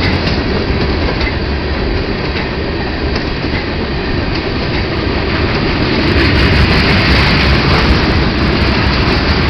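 Freight train tank cars and covered hopper cars rolling past, with a steady rumble and clatter of steel wheels on the rails. It grows a little louder about six seconds in.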